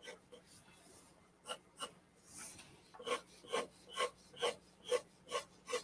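Pencil strokes scratching on drawing paper while shading a sketch. A few scattered strokes come first, then a steady rhythm of about two strokes a second from about halfway.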